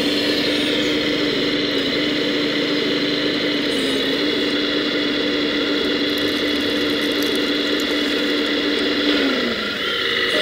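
Hydraulic pump and electric motors of a 1:14-scale RC hydraulic machine running with a steady whine. The pitch dips slightly about four seconds in and slides down as it winds off near the end.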